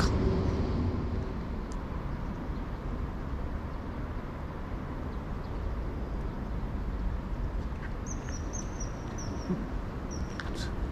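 Steady low outdoor rumble, with a short run of high chirps about eight seconds in.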